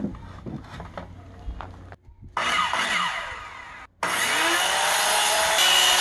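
Handheld circular saw cutting through a wooden bed-frame rail. Light knocks of handling the timber come first; from about two seconds in the saw runs loud, its pitch falling, then from about four seconds in it runs loud and steady.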